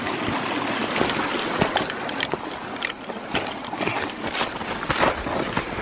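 Hiking boots crunching step by step through a thin layer of fresh snow and dry brush, with twigs snapping and scraping, over a steady rushing noise.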